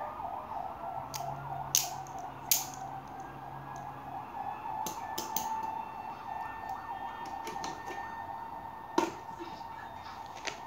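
A few sharp metal clicks and clacks as a folding stainless multi-tool is closed and set down and a hurricane lantern's wire handle is moved, the loudest two about two seconds in. Under them runs a steady wavering, siren-like tone.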